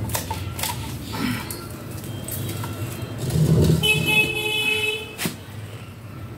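A vehicle horn sounds for about a second, around four seconds in, just after a brief low rumble; a sharp click follows.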